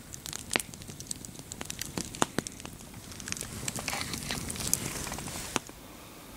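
Campfire of burning logs crackling: scattered sharp pops and snaps, then a thicker run of crackling for a couple of seconds that cuts off suddenly about five and a half seconds in.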